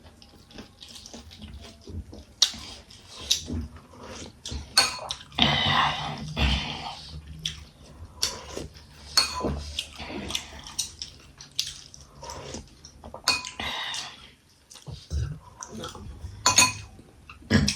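Plates and cutlery clinking and knocking on and off during a meal, with a longer rough noise about five seconds in.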